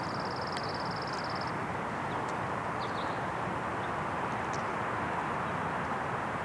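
Steady hum of distant traffic, with a small songbird's rapid high trill lasting about a second and a half at the start and a few faint high chirps about three seconds in.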